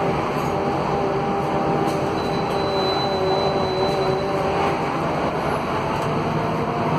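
Scania K280 bus heard from inside the passenger cabin: its Scania DC09 five-cylinder diesel and ZF Ecolife automatic gearbox run with a steady rumble. A few whining tones drift slightly in pitch over the top.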